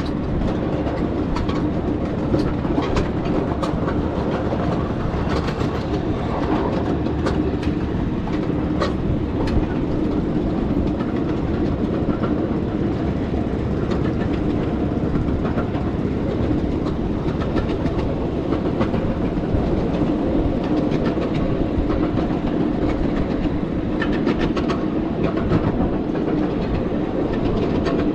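7½-inch gauge ride-on miniature train rolling steadily along the track: a continuous rumble of the cars, with wheels clicking over the rail joints, the clicks coming thickest in the first several seconds and again near the end.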